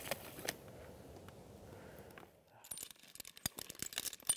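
Metal climbing hardware on a tree climber's harness (carabiners and rigging gear) clinking and jangling in quick, irregular clicks as he climbs the trunk on spurs, starting about halfway in after a faint steady background.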